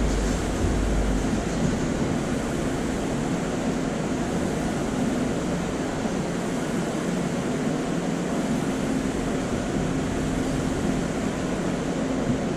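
Steady rushing noise with a low, even hum underneath, holding at one level throughout.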